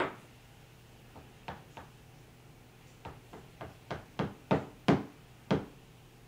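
Taps against a metal espresso portafilter basket full of ground coffee, settling the grounds before tamping. One loud knock at the start and a few light taps, then from about three seconds in a quicker run of about eight taps, roughly three a second, growing louder.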